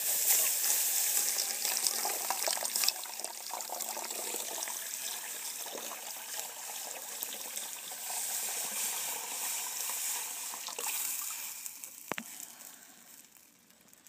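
Cold water poured into a hot metal pot that has boiled dry on a burning biomass camp stove, flashing into steam: a sudden loud hiss and sizzle with pouring and splashing that gradually dies down and fades out near the end. A single sharp click sounds a couple of seconds before the end.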